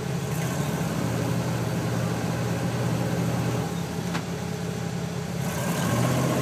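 Rock crawler's engine running at low, steady revs as it works up a boulder, picking up speed and getting louder about five and a half seconds in. A single sharp click sounds about four seconds in.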